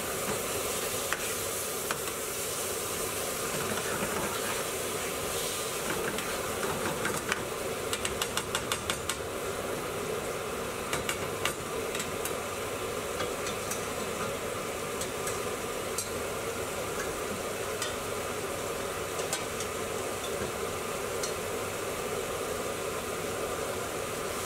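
Chicken pieces sizzle-frying in hot spiced oil and paste in a pan, with a spoon stirring and scraping. A quick run of spoon knocks against the pan comes about eight seconds in, and a few more around eleven seconds.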